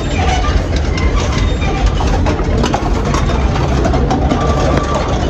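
Motor vehicle running: a steady low engine rumble with road noise and scattered small rattles.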